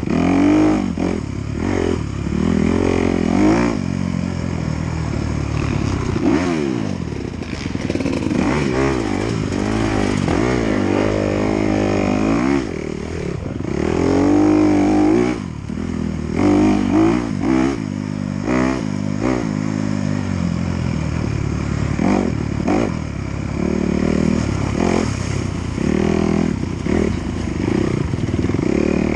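Onboard sound of an off-road dirt bike racing a rough woods trail, its engine revving up and falling off again and again as the rider shifts and throttles through the ruts, with rattling from the bike over the bumps.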